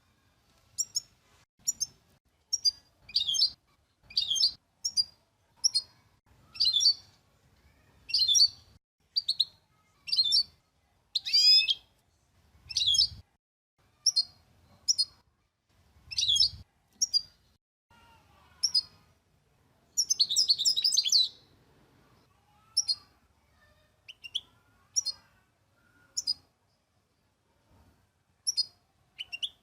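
A small songbird calling: short, high chirps about once a second, with a longer, denser twittering run about twenty seconds in.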